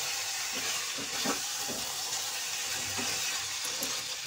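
Thick vegetable and soya chunk curry sizzling in a nonstick kadai on the gas with a steady hiss, while a wooden spatula stirs it with a few soft scrapes.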